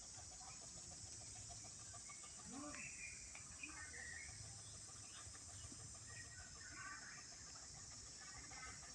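Faint steady insect chorus, with a few scattered faint bird calls over it.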